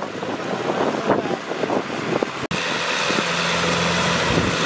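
Kubota tractor's diesel engine running under load as it drags a rotary tiller through wet mud. The sound is irregular at first, then changes abruptly about halfway to a steadier drone with a low steady hum.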